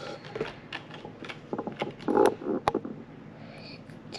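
Scattered light clicks, taps and scratches of hands handling a small glass sand-art bottle and its funnel on a plastic tray, loudest in a brief clatter about two seconds in and one sharp click just after.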